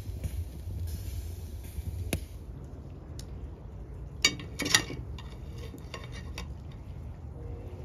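Metal skewers clinking against a ceramic serving platter as they are set down, with two sharp, loud clinks about halfway through and lighter taps after. Before that, a steady low rumble with a hiss.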